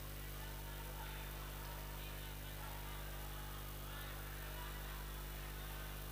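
Steady electrical mains hum from the sound system, with faint voices of many people praying aloud at once.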